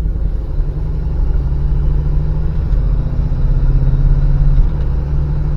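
Car engine running under way, its note climbing slowly and then changing abruptly about four and a half seconds in. The 32RH automatic's torque converter has not yet locked up.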